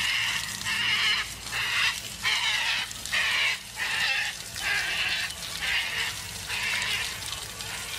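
Water from a hose splashing onto a hippo's face and open mouth, in repeated bursts about once a second.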